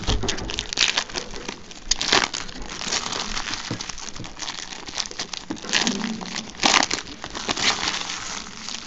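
Foil wrapper of a baseball card pack crinkling as it is torn open and handled: an irregular run of crackles, with a few louder crinkles about two, six and seven seconds in.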